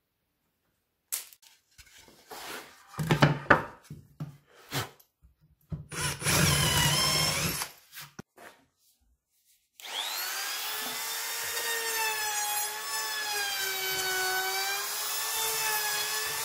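Knocks and clicks of tools being handled on the workbench, and a cordless drill running briefly about six seconds in. From about ten seconds a corded router starts and runs continuously with a high whine whose pitch wavers slightly.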